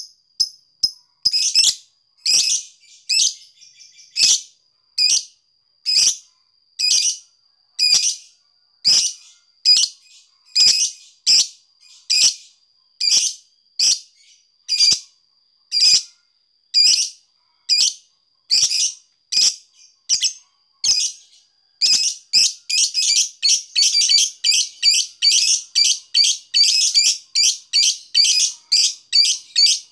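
Fischer's lovebird singing: sharp high chirps about once a second, then, about two-thirds of the way in, a long fast run of clicking chatter at about four a second, the 'ngetik' (typing) song. A faint steady high whine runs underneath.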